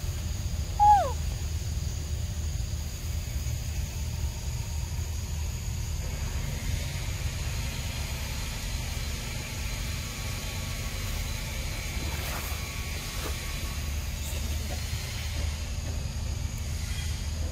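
Outdoor ambience: a steady low rumble under a faint high hiss, with one short falling call about a second in.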